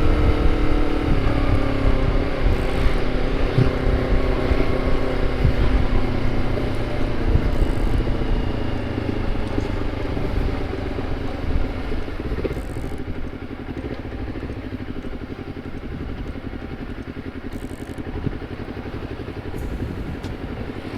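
Honda CBR250RR parallel-twin engine running through a KEA Speed aftermarket exhaust while riding. The engine note drops about a second in, and the sound eases off gradually over the next dozen seconds before settling to a steady, quieter run.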